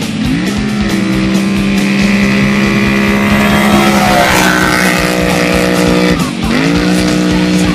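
Kawasaki KFX 840 quad's engine running hard at high revs. Its pitch climbs in the first half second and holds steady, then drops briefly and climbs again about six seconds in.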